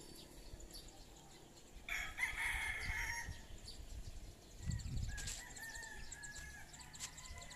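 A rooster crowing: one loud call about two seconds in lasting a little over a second, and a fainter call later on.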